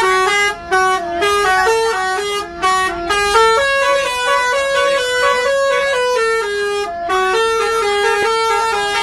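Bus's Basuri telolet horn, a multi-tone musical air horn, playing a fast tune of stepped notes, with brief breaks about a second in, near three seconds and around seven seconds in.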